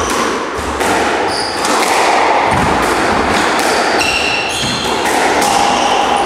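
Squash rally: a run of sharp hits as the ball is struck by rackets and slaps off the court walls, ringing in the enclosed court, with brief squeaks from players' shoes on the wooden floor.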